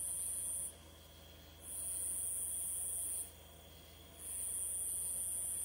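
Insects calling in high-pitched trills, each about a second and a half long, with pauses of about a second between them, three times over.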